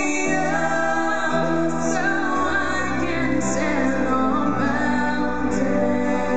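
Young female vocalists singing a slow ballad into microphones over instrumental accompaniment, with sustained bass notes that change every second or two. The music is amplified and heard through a live room.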